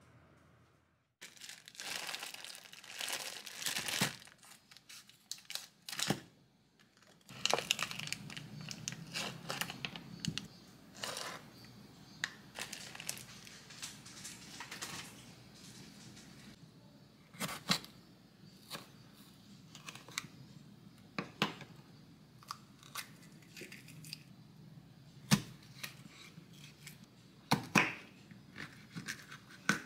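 Plastic food wrapping rustling and being torn open, then a knife cutting small sweet peppers on a wooden cutting board, with scattered sharp clicks of the blade striking the board in the second half.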